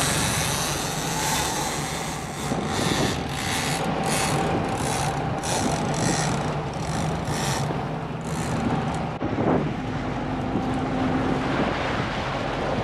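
A sportfishing boat's engine running steadily under wind and rushing, splashing water from the wake. In the middle stretch a run of short rushing sounds comes about twice a second for several seconds.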